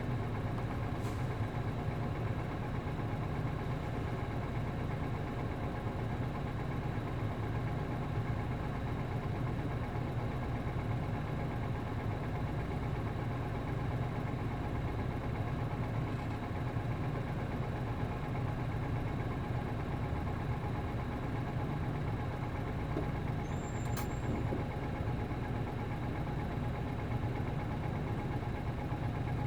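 Nissan Diesel MD92TJ diesel engine of a city route bus running steadily, heard from inside the bus, with no change in speed or revs.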